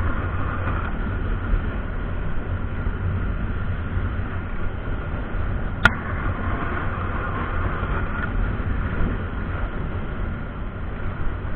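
Riding noise from a Honda fuel-injected motor scooter at cruising speed: a steady low wind rumble over the engine and road, with one sharp click about six seconds in.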